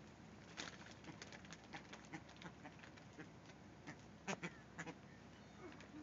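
A flock of American white ibises feeding on the ground: faint, irregular quick clicks and taps from their bills, with a few louder ones about four to five seconds in.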